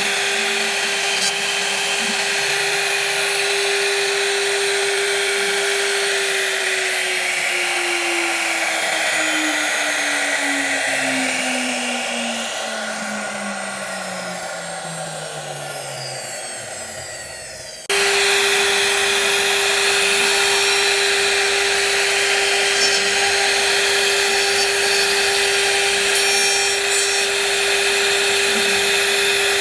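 An electric woodworking machine's motor running with a steady whine over cutting and wood noise, then spinning down, its pitch falling slowly over about ten seconds. After a sudden cut, a machine is running at full speed again with the same steady whine.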